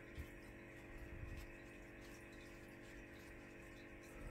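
Near silence: room tone with a faint steady hum and a couple of faint small clicks.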